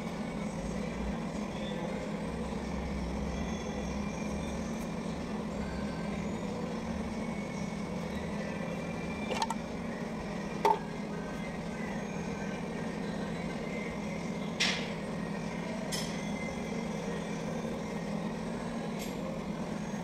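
A few sharp metal clinks from the valve cover and tools being handled as the rocker cover comes off a Kubota D850 diesel's head, over a steady low machine hum.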